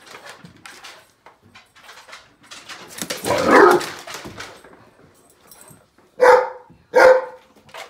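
Basset hound playing: scattered clicks and scuffling, then a loud rough outburst about three seconds in. Two loud, short barks follow near the end.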